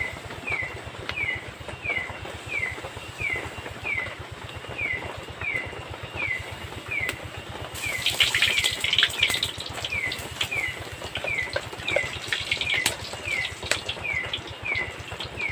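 Flour batter dropped into hot oil in a wok and frying: a loud crackling sizzle starts about halfway through and dies down a few seconds later. Throughout, a short falling chirp repeats about three times a second.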